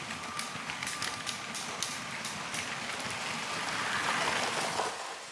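LEGO train running along its plastic track: a steady motor whir with a run of sharp clicks, about three a second, over the first couple of seconds. The sound grows louder about four seconds in and begins to fade at the very end.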